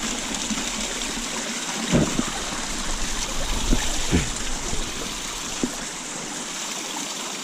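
Steady rush of a steep mountain stream running over rocks and small falls, with a few short knocks about two, four and five and a half seconds in.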